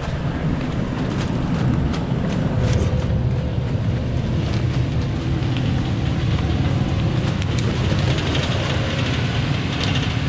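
Diesel engine of a Thaco Forland FC950 4WD truck working steadily under load as the truck climbs a steep dirt slope, a low drone with scattered clicks and crackles over it.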